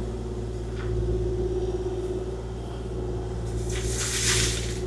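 Kubota KX040-4 excavator's diesel engine running steadily with a low hum and a steady drone, and a brief hissing rush about four seconds in.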